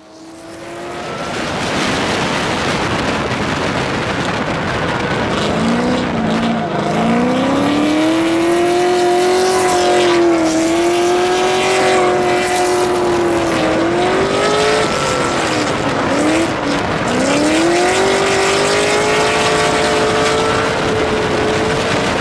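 LS1 V8 engine of a Nissan 240SX S14 drift car revving hard under a steady rush of noise, its pitch climbing and then held high with brief lifts. Around two-thirds of the way through the revs drop sharply and then climb back up and hold.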